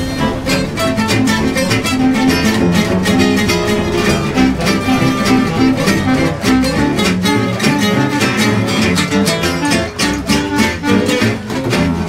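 Swing jazz band playing, with a steady beat.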